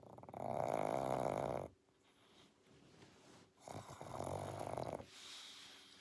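Pug snoring in its sleep: two long snores, each about a second and a half, with quieter breathing between them and a softer breath out near the end.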